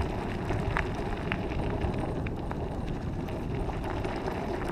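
Wind on the microphone and a dog scooter rolling over a dirt trail: a steady low rumble with a few faint clicks.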